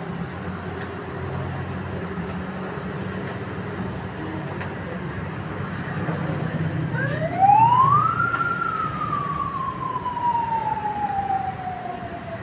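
A siren winds up in pitch over about a second, about halfway through, then slowly falls away in one long wail. A low steady engine-like hum runs underneath.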